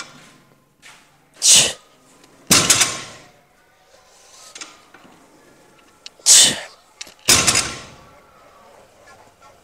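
Barbell deadlift reps with bumper plates: twice a sharp, forceful exhale, each followed about a second later by the loaded bar touching down on the floor with a thud that rings on.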